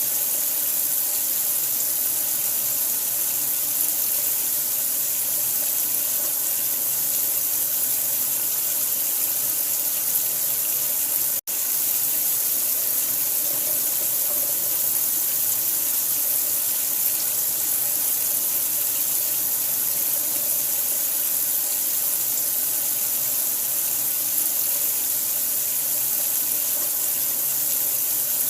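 Steady, unbroken running water, an even hiss strongest in the high range, with a split-second drop-out about eleven seconds in.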